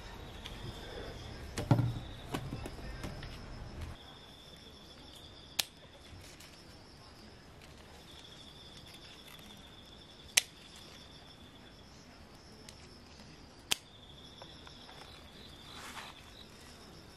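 Insects singing outdoors in repeated, even phrases, with three sharp snips of scissors cutting pepper stems, about five and a half, ten and a half and fourteen seconds in. The first few seconds hold rustling and handling bumps of produce.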